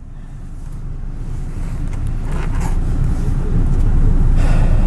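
Low, steady engine and road rumble heard inside a Lada Kalina's cabin, growing gradually louder over the first few seconds and then holding.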